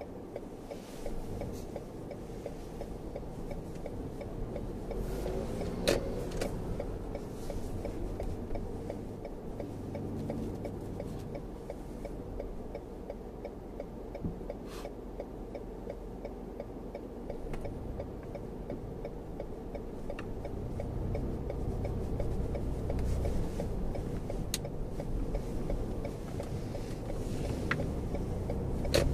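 Inside the cabin of a Lexus RX 450h: a steady, even ticking, typical of the turn-signal indicator, over low road and drivetrain noise. The road noise grows over the last several seconds as the car picks up speed.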